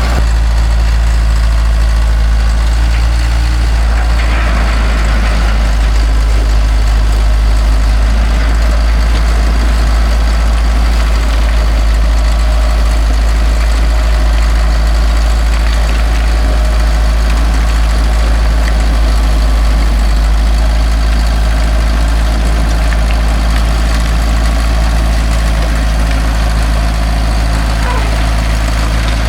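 1977 Caterpillar D4 bulldozer's diesel engine running steadily at a low, even speed.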